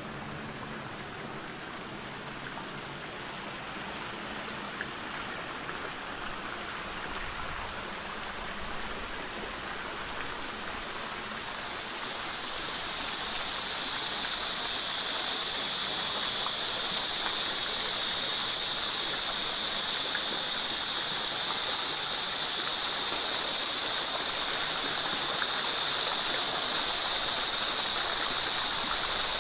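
Small fountain jets splashing into a garden pond as a steady rush of water. It is faint at first, then swells over a couple of seconds a little under halfway through and holds loud.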